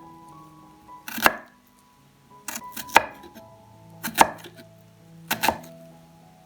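Kitchen knife chopping on a cutting board: four or five slow, sharp cuts about a second apart, over soft background music.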